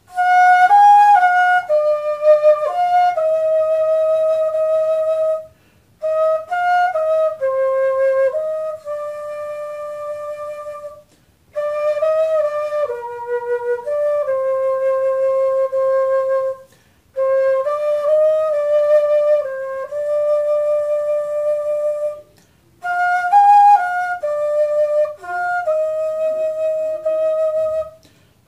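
Homemade PVC-pipe transverse flute (fife) playing a slow melody in five phrases. Each phrase ends on a long held note, with a short breath pause before the next.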